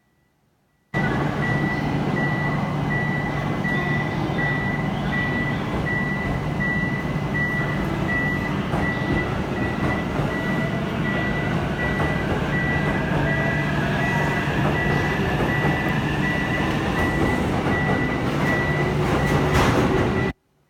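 A Shinkansen train and station platform making a steady rumble and hum, with a high electronic beep repeating about twice a second throughout. A faint whine rises in pitch in the second half. The sound starts abruptly about a second in and cuts off abruptly near the end.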